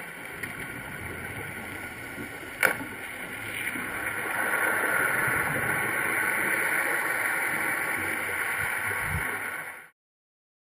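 Underwater ambience heard through a GoPro's sealed housing: a steady hiss with one sharp click about two and a half seconds in, then a louder rushing noise from about four seconds in that cuts off abruptly near the end.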